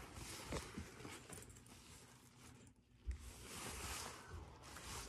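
Faint rustling and handling noise from a sequined fabric backpack being lifted and turned over, with a soft low bump about three seconds in.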